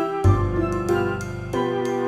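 Soft instrumental Christmas background music: a gentle sustained melody, with a deep bass note coming in about a quarter of a second in.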